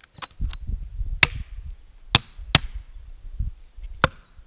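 Hatchet chopping into firewood on a stump: four sharp, loud strikes about a second apart, with a couple of fainter knocks at the start.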